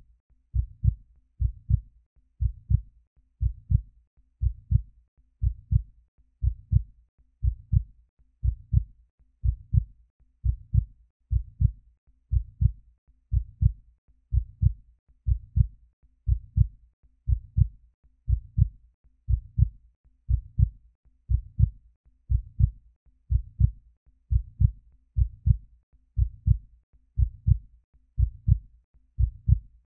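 A heartbeat: a steady lub-dub double thump, about once a second.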